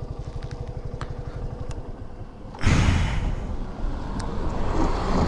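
A motorcycle engine pulsing evenly at low revs. About halfway through, a sudden loud rush of noise covers it and stays.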